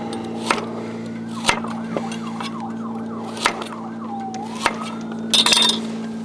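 Kitchen knife chopping potatoes on a cutting board: single sharp knocks every second or two, then a quick run of chops near the end. Behind them an emergency-vehicle siren wails, switching to a fast yelp for a couple of seconds, over a steady low hum.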